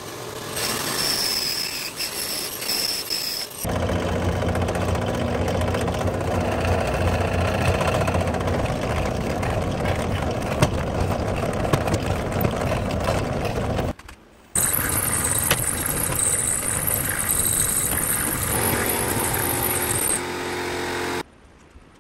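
Woodworking power tools working oak in a run of short clips: a bandsaw cutting a board, then a drill press running and boring small holes. After a brief break about two-thirds in, more machine noise follows, and it stops shortly before the end.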